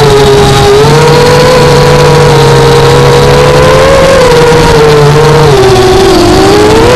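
FPV quadcopter's brushless motors whining in flight, the pitch wandering up and down with throttle and dipping for a moment about six seconds in, over a constant loud rushing noise.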